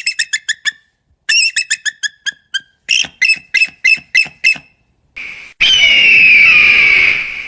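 Bald eagle calling: three runs of quick, high piping notes, each run trailing off slightly lower. Near the end comes one long scream that falls in pitch over a background hiss.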